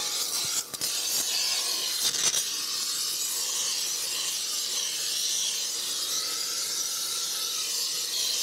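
Gas torch flame hissing steadily while heating a flat belt pulley hub, to expand it so the old shaft will press out. Two brief knocks come within the first few seconds.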